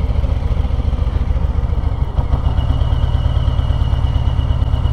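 Harley-Davidson Road Glide ST's Milwaukee-Eight 117 V-twin idling steadily, an even low pulse through its new stainless aftermarket muffler.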